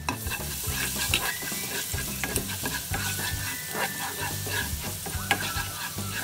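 Minced garlic sizzling in hot oil in a nonstick pan while a spatula stirs it, with frequent short scrapes and taps of the utensil against the pan.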